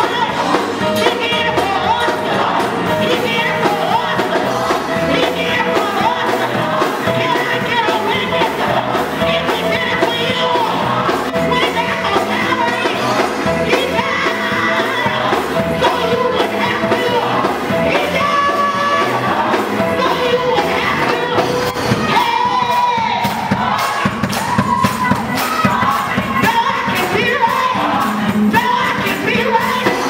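Live gospel music: a choir singing with a female lead vocalist over keyboard, organ, bass guitar and drums, with shouts from the singers.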